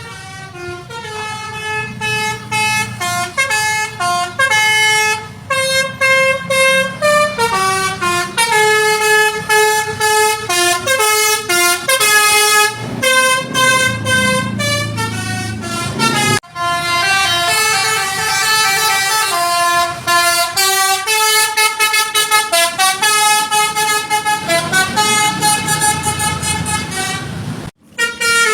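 Indonesian 'telolet' Basuri multi-tone bus horn playing a fast melody of short stepped notes, over the low rumble of the bus engine. The horn breaks off briefly about halfway and again near the end.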